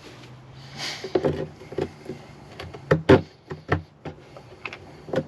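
A string of short, sharp clicks and knocks from small hardware being handled and fitted, the loudest a close pair about three seconds in and another near the end, with a brief hiss about a second in.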